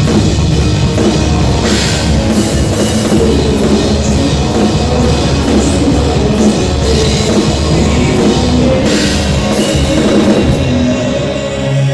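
A rock band playing, driven by a drum kit with cymbals struck in an even pulse over a steady low end. The cymbals drop out near the end.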